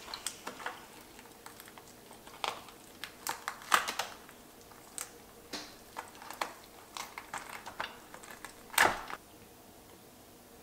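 Tableware being handled during a meal: scattered light clicks and clinks of plates and utensils, with one louder knock near the end.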